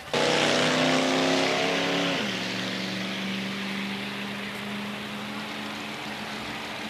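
Drag-racing car engine at the starting line, held at raised revs and then dropping in pitch about two seconds in to a steady lower speed, with a hiss strongest at first.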